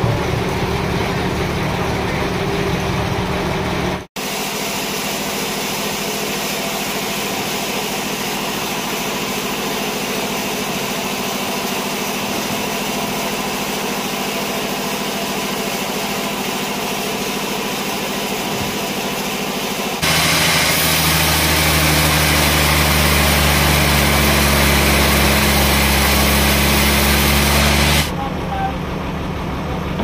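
An engine idling steadily, heard across several spliced shots; in the second half a louder engine idles with a steady deep hum for several seconds before an abrupt cut back to a quieter running sound.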